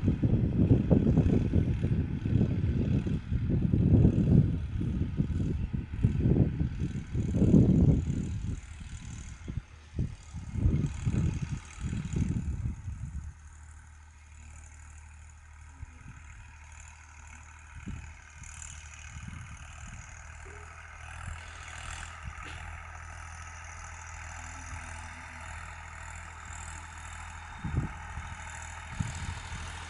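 Tractor engine running: loud, uneven low rumbling for the first dozen or so seconds, then a steadier, quieter hum.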